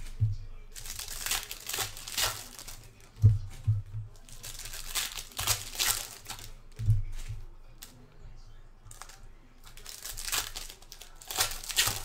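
Foil wrappers of 2022 Bowman baseball card packs crinkling and tearing as they are ripped open by hand, in three spells. A few soft low knocks in between come from cards being set down on the table.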